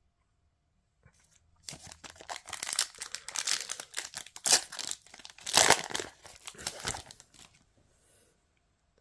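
Foil trading-card booster pack wrapper crinkling and tearing open, starting after a short silence, with a couple of louder rips near the middle.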